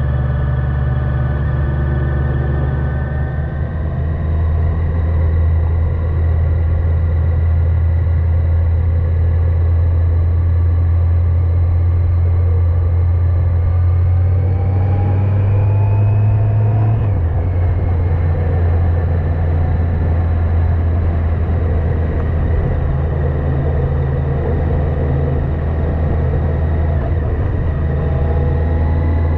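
Yamaha FJR1300AE inline-four motorcycle engine running at road speed under a steady low rumble. Its pitch climbs briefly past the middle and drops suddenly about 17 s in.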